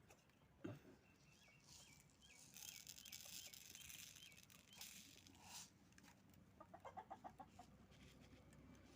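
Faint clucking of a chicken: a quick run of about eight clucks near the end, with a faint high wavering call a few seconds earlier and a short low thud under a second in.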